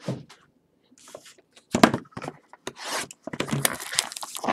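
Hands opening a sealed box of trading cards: cardboard and wrapping scraping and tearing in scattered strokes at first, then near-continuous crinkling and rustling over the last second or so.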